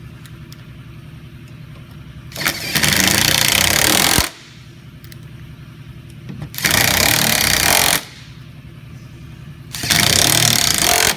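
Impact driver with a 3/8 socket running the latch-assembly screws back in, in three bursts of about one and a half seconds each. A steady low hum runs underneath.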